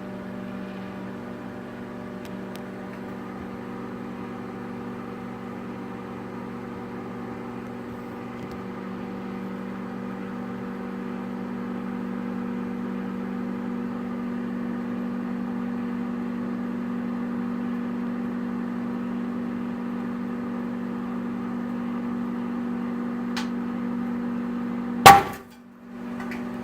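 A microwave oven running with a steady hum. Near the end a single sharp, very loud bang, an egg exploding from the steam built up inside it, and the hum drops away for about a second after it.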